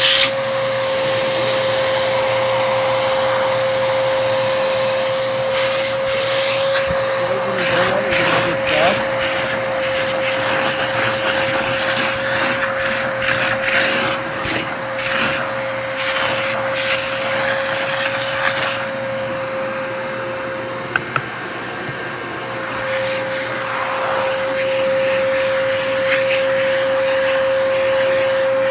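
A vacuum cleaner running with a steady whine, its nozzle sucking dust out of a vacuum filter. From about six to nineteen seconds in, rapid clicks and rattles as the nozzle is worked over the filter; the whine dips briefly around twenty-one seconds in.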